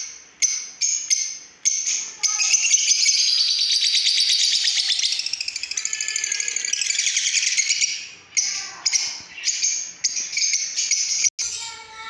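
Caged lovebirds calling: a series of sharp, high chirps, then from about two seconds in a dense unbroken chatter for some six seconds, then separate chirps again.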